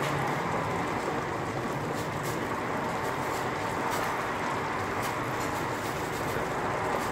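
Creamy sauce with vegetables and meat simmering in a frying pan: a steady bubbling hiss with scattered small pops.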